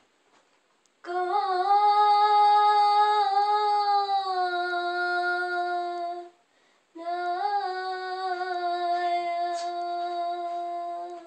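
A girl singing unaccompanied: two long phrases without words, each opening with a few small turns of pitch and then holding a long steady note. The first starts about a second in, and the second follows a short breath pause just past the middle.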